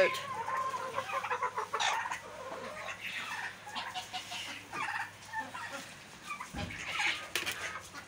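Domestic chickens clucking and giving short calls as a flock crowds round and pecks at scattered food scraps.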